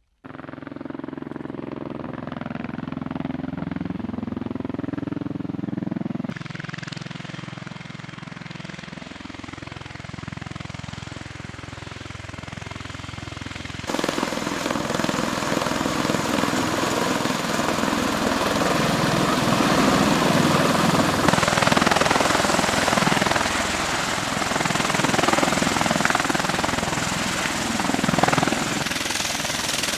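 Engine running loud and continuous, its pitch climbing over the first few seconds. The sound changes abruptly about six seconds in, and again about halfway through, where it becomes a louder, rougher run that lasts to the end.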